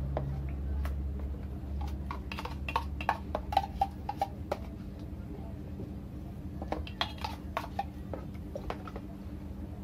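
Metal tin can of condensed milk clinking and tapping against a plastic food container as the milk is poured and shaken out of it, in two clusters of short knocks. A steady low hum runs underneath.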